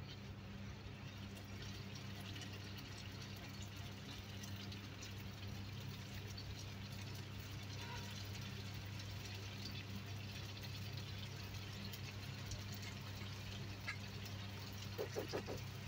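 Pumpkin-dough twists deep-frying in hot cooking oil in a frying pan: a steady crackling sizzle over a low steady hum.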